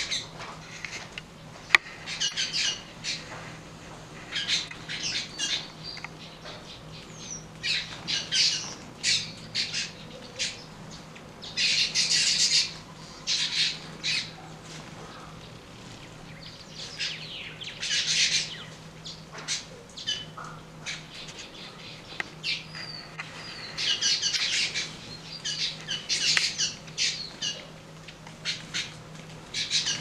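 A flock of red-billed queleas at a seed feeder chattering: repeated short, harsh calls that swell into dense bursts of chatter a few times, loudest around twelve seconds in, again about six seconds later and near the end. A single sharp click sounds near the start.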